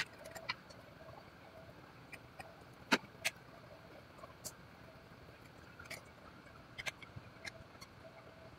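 Scattered light clicks and taps of a screwdriver and fingers against the opened Dell Inspiron 5570 laptop's chassis and internal parts. There are about a dozen in all, the sharpest knock about three seconds in.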